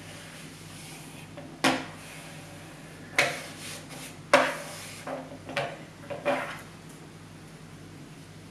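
Six short knocks and scrapes as the model's imitation-wood deck piece is pressed and handled against a wooden tabletop, spread over several seconds.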